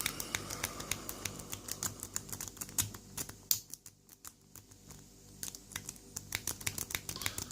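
Lock pick working the pins inside a Lockwood 40 mm padlock: rapid, light metallic clicks of the pick on the pins. The clicks thin out around the middle and pick up again near the end.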